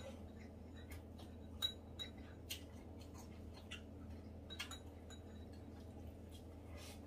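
Metal chopsticks tapping and clinking against ceramic bowls while eating, a scattered string of light clicks with the sharpest about a second and a half in, over a low steady hum.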